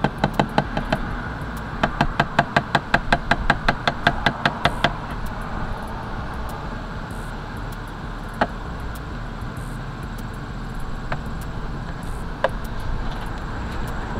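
Motor oil glugging out of a large plastic bottle into an engine's oil filler, about four glugs a second for the first five seconds, then a steadier pour with a few single clicks as the bottle runs empty.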